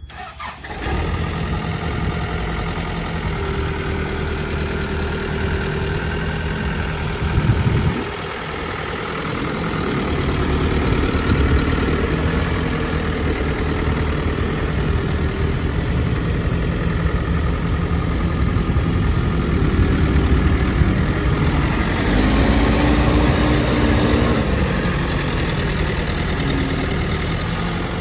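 New Holland B95 backhoe loader's diesel engine running steadily at idle, with a brief swell in loudness about eight seconds in and a short rise and fall in pitch a little past two-thirds through.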